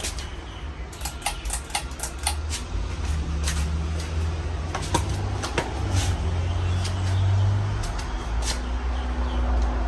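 A 50-inch Casablanca Panama ceiling fan running: a steady low rumble with irregular sharp clicks scattered through it.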